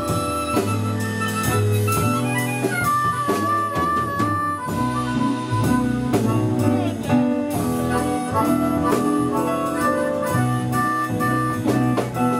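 Live blues band playing an instrumental passage. A lead instrument holds and bends melody notes over a steady bass line and drum kit.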